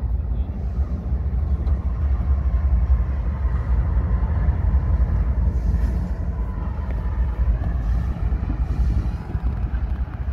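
Two Norfolk Southern diesel-electric locomotives running light past the listener, with a steady low engine rumble and a faint steady tone above it.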